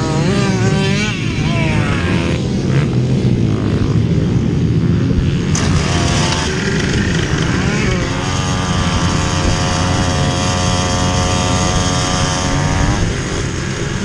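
Small dirt bike's engine running on a motocross track, heard from the rider. The engine note rises and falls with the throttle, then holds at a steady high pitch for several seconds before easing off near the end.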